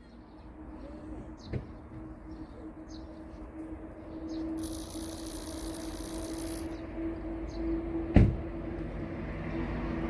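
Small birds chirping in short, scattered calls over a steady engine hum that grows louder toward the end. About halfway through comes a two-second hiss, and about eight seconds in a sharp knock, the loudest sound.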